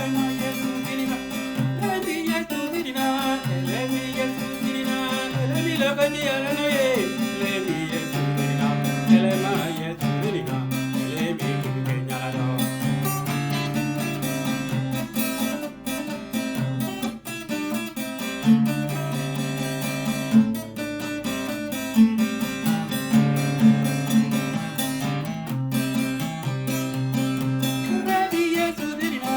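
Music with acoustic guitar and a steady bass line, with some singing.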